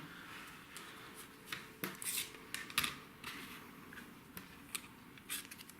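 Quiet handling sounds: scattered light clicks, taps and rubbing as a plastic engraving template and a piece of wood are moved and positioned by hand.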